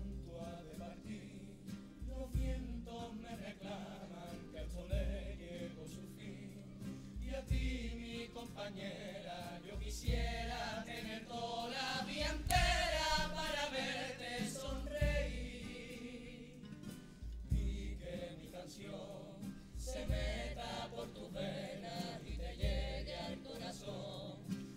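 Cádiz carnival comparsa music: young voices singing together over Spanish guitars, with a deep bass drum beat about every two and a half seconds.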